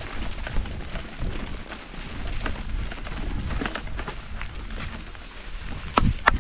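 Hardtail mountain bike rolling fast over a rough gravel and sand trail: tyres crunching and the bike rattling continuously, with two sharp clacks near the end as it hits bumps.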